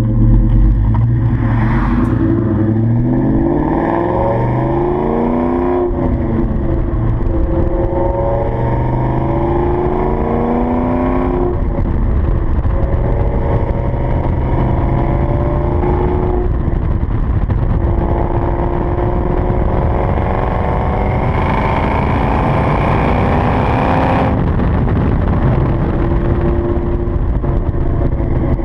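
The 2003 Ford SVT Cobra's supercharged 4.6-litre V8, heard at the Flowmaster exhaust tip, pulls away and accelerates through the gears. The pitch climbs and drops back at three shifts, climbs once more, then the throttle closes about four seconds before the end and it holds steady revs.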